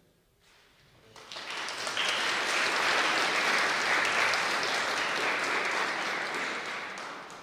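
Audience applauding. The clapping starts about a second in, holds steady and fades out near the end.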